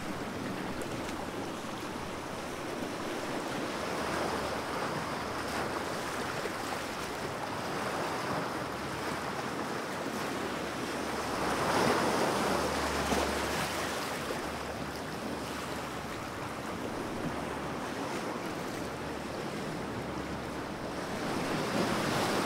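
Ocean surf breaking on a beach: a steady wash of noise that swells and fades with each wave, loudest about halfway through and again near the end.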